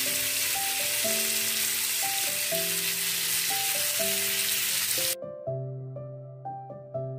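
Chicken breast fillets sizzling as they fry in margarine in a pan, over background music. The sizzling cuts off suddenly about five seconds in, leaving only the music.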